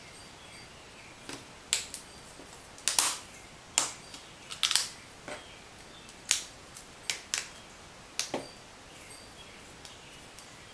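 Sharp, irregular clicks and snaps of the Garmin GPSMAP 498's LCD module parts, a thin metal frame and plastic tray, being pressed and fitted together by hand. There are about a dozen, most of them in the first eight seconds.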